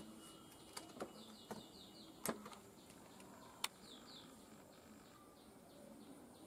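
Faint, sharp plastic clicks of a fibre-optic fusion splicer's clamp lids and windshield being handled as a cleaved fibre is set in place, the loudest about two seconds in and again a little after three and a half seconds. Faint rows of short, high chirps run behind them.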